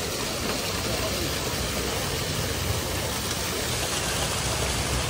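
Steady rushing hiss of water jets spraying up into a water-ride channel, with no separate splashes or knocks.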